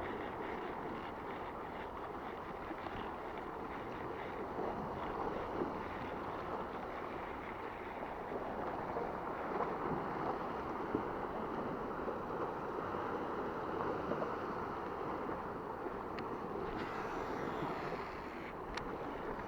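Sea water sloshing and lapping around a kayak out on the sea, steady throughout, with wind on the microphone.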